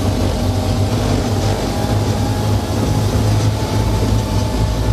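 Hägglunds tracked vehicle driving, heard from inside its cab: the turbocharged pre-chamber diesel runs steadily under way with a deep drone, along with the rumble of the tracks and a faint steady whine.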